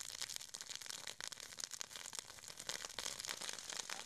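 Dry grass and brush burning, crackling with many small irregular pops.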